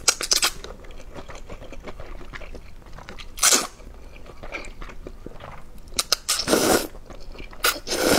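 A person slurping noodles loudly in about four long sucks, one near the start, one a third of the way through and two near the end, with wet chewing and small mouth clicks in between.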